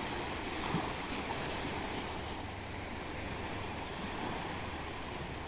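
Steady wash of sea waves, an even rushing noise, with a small knock about a second in.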